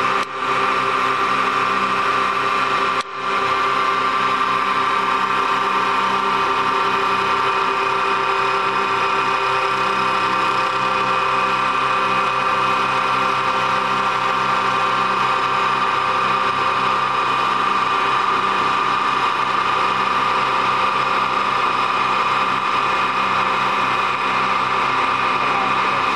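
CNC wood-turning lathe running steadily: a constant high whine over a lower hum, dipping briefly twice in the first few seconds.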